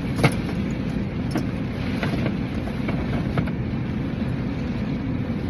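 Steady low rumble of a car idling, heard from inside the cabin, with a few light clicks and taps, the sharpest near the start.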